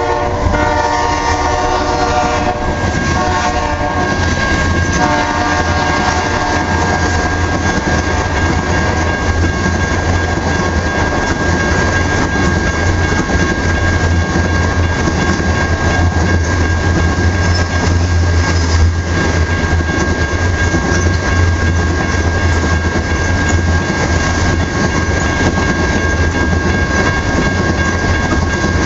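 A BNSF freight train passing close by. A locomotive horn chord tails off in the first few seconds, then a long, steady rumble and clickety-clack of the oil train's tank cars rolling past on the rails.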